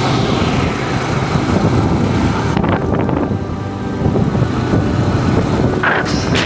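A motorcycle running on the move, with wind rushing over the microphone and music faintly underneath.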